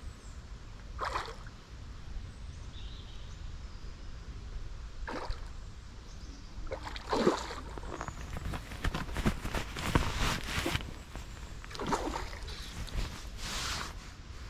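Water splashing and sloshing in a series of short, irregular bursts over a steady low rumble.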